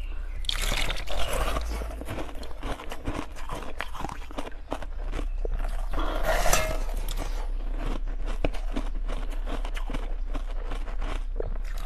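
Ice being bitten and chewed close to the microphone: a rapid, irregular run of crunches and cracks over a steady low hum.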